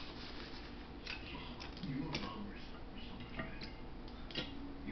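Chewing, with scattered wet mouth clicks and smacks, and a sharper knock about four seconds in.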